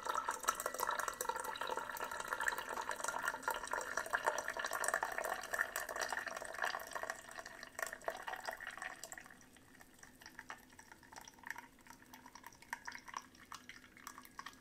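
Brewed tea running in a thin stream from a Ninja CP307 Hot and Cold Brewed System into a ceramic mug. About nine seconds in, the flow dies down to scattered drips as the brew finishes.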